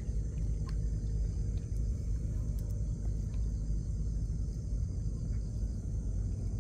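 A small boat's engine running steadily with a low rumble.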